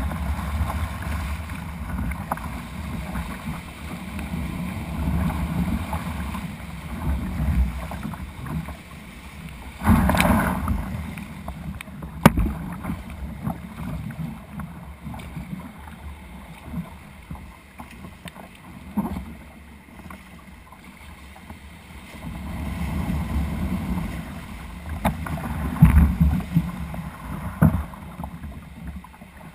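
Surf water sloshing and splashing against a plastic kayak's hull as it rides through breaking foam, rising and falling with the waves, with heavier splashes about ten seconds in and again near the end. A single sharp knock comes about twelve seconds in.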